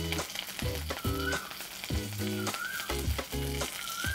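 Fresh curry leaves sizzling and crackling in hot olive oil in a non-stick pan, with many small pops. Low background music repeats underneath.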